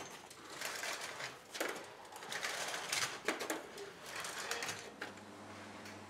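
Metal walking frame scraping and clacking on stone paving as it is pushed along in short shuffling steps, a burst every second or so. A low steady hum comes in near the end.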